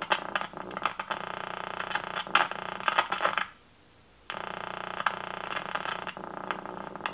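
1951 RCA Victor 1-X-51 AM tube radio's speaker putting out static with crackles and pops, cutting out for under a second about midway and then coming back. The noise is taken for a sign that the capacitor between chassis and common ground is not where it's supposed to be.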